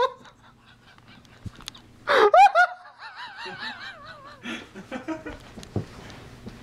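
A man's loud, high-pitched laughing shriek about two seconds in, trailing off into quieter, wobbling cries that rise and fall in pitch.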